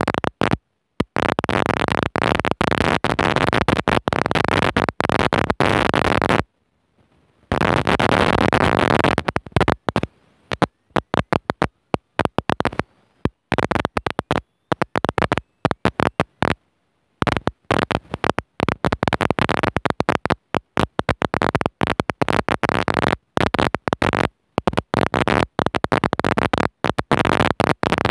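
Loud, even static-like noise that cuts in and out abruptly over and over, with stretches of dead silence between.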